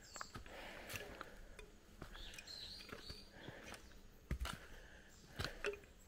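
Faint jungle ambience: a few short bird chirps among scattered irregular clicks and taps.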